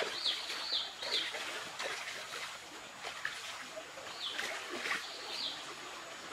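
A water splash as a hand plunges into a shallow stream, then a bird calling: four short, sharp notes in quick succession, and two more a few seconds later.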